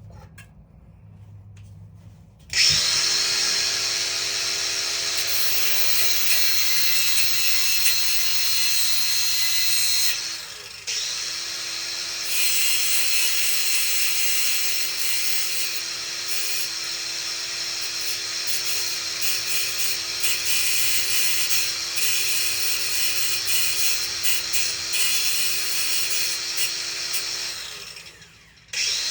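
A small high-speed power tool running under load, trimming a part to fit. It starts about two and a half seconds in with a steady whine and hiss, drops out briefly around ten seconds in, restarts, and stops shortly before the end.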